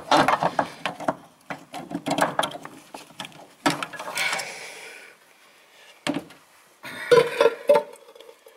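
Clicks, knocks and clinks of metal parts being handled as the old brake master cylinder is pulled off the brake booster. A busy run of clicks fills the first four seconds or so, then a louder cluster of clinks with a short ring comes near the end.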